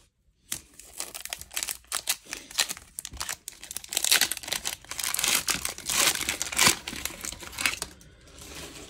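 Plastic wrapper of a hockey card pack crinkling and tearing in the hands, a dense crackle that is loudest between about four and seven seconds in.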